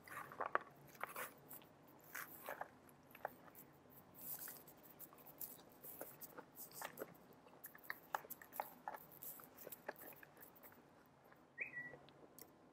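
Faint close-up chewing and crunching of salad greens, with scattered small clicks and crackles. A brief high squeak near the end.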